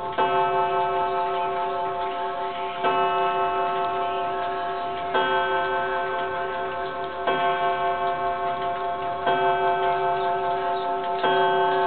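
1903 Gustav Becker wall clock striking six o'clock on its gong: six strokes about two seconds apart, each ringing on in several steady tones, over the clock's ticking.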